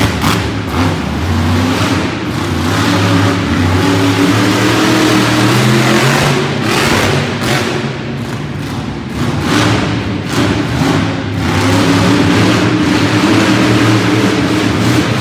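Bounty Hunter monster truck's engine running loud, revving up and easing off again and again, its pitch rising and falling; the level drops back for a moment around eight seconds in before picking up again.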